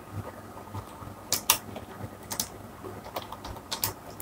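Computer keyboard keys clicking in a few sparse, irregular taps.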